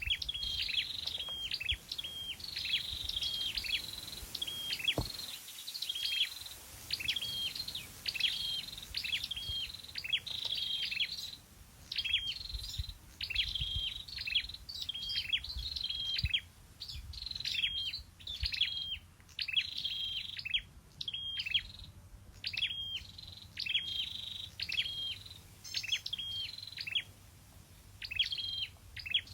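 Scarlet-backed flowerpecker singing a long run of short, high chipping notes, repeated a little more than once a second.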